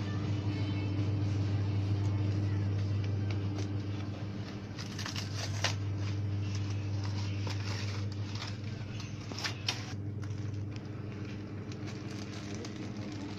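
Steady low electrical hum of a shop's refrigerated display cases, with a few brief clicks and rustles about five and nine and a half seconds in.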